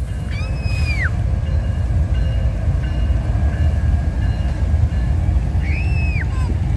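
Train passing close by: a steady low rumble of rolling wheels, with two brief high squeals, about half a second in and near the end.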